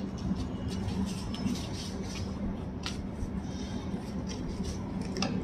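Steady low room hum, with faint light clicks and soft rustles from chapati being torn by hand and pressed into gravy on a plate.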